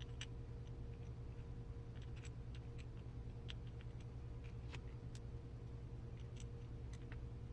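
Faint, irregular small clicks and taps of small parts being handled during assembly of a 1/10-scale RC car gearbox, over a steady low hum.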